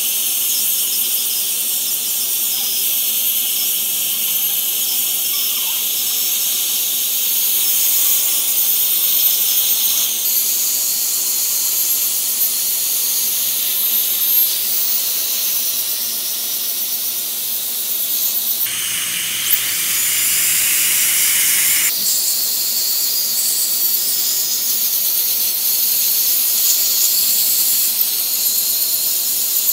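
Dental suction hissing steadily while a dental handpiece whines high, grinding the leftover bracket glue off the teeth after braces removal. For about three seconds, a little past the middle, the hiss turns fuller and lower.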